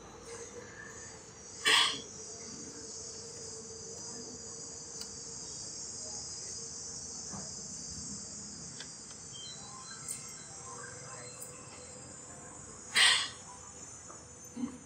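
Steady high-pitched chirring of crickets, with a faint steady hum beneath. Two sharp knocks cut through, one near the start and one near the end, louder than the rest.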